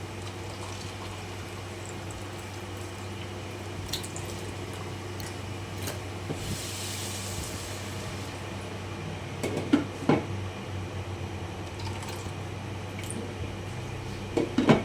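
A pot of vegetables simmering in liquid over a steady low hum, with a brief hiss about six and a half seconds in and a few knocks of pot or utensils, the loudest about ten seconds in and near the end.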